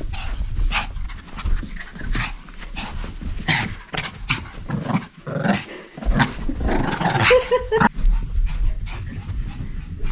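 Small long-haired dog panting and making short vocal sounds in excited play, amid knocks and rustling from the camera being handled and set down on the floor.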